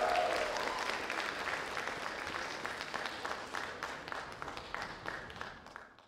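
Audience applauding after a stage performance, a dense patter of hand claps that thins out and fades away near the end.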